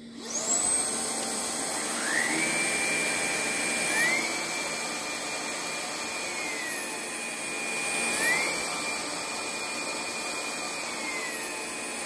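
Vax ONEPWR Blade 4 cordless stick vacuum's brushless motor starting up with a rising whine, then stepping up through its power settings to a higher, louder whine about four seconds in, dropping back for a moment around seven seconds and rising again at eight, sucking harder on its boost setting before winding down near the end.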